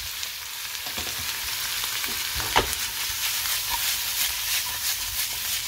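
Bacon, onion and broccolini sizzling and crackling in butter and olive oil in a frying pan while being stirred and tossed, with one sharp knock about two and a half seconds in.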